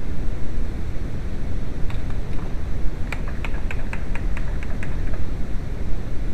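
Steady low rumbling noise, with a quick run of about ten light clicks in the middle, three or four a second.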